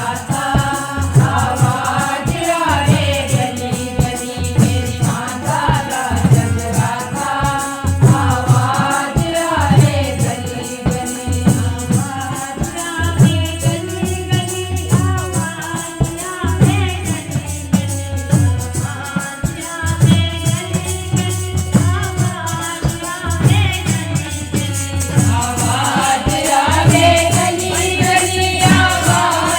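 Hindu devotional bhajan for the Mother Goddess: voices singing the melody over a steady drum beat and a constant jingling rattle.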